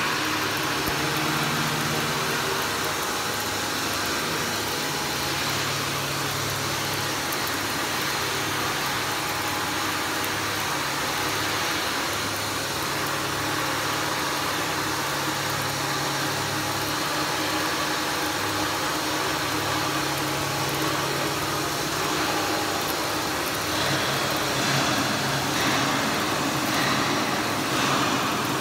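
Electric arc welding on steel: a steady crackling hiss from the arc, with a low steady hum underneath, growing a little louder near the end.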